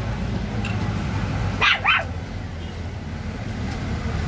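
A dog barking twice in quick succession about one and a half seconds in, over a steady low hum.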